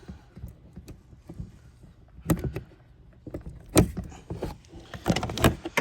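Plastic clicks, taps and knocks from handling a car's loose interior door panel while unplugging its wiring connectors, with louder knocks a little after two seconds, near four seconds and in a cluster near the end.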